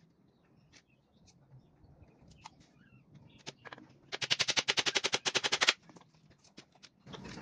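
Hammer nailing a wooden batten frame: a fast run of sharp, evenly spaced blows, about ten a second, for about a second and a half starting about four seconds in, after a few scattered light knocks.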